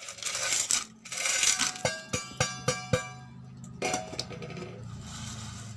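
Pieces of rock sugar (patika bellam) poured into a small kadai, rattling in as a pour and then landing with several sharp, ringing clinks, followed by one more short rattle.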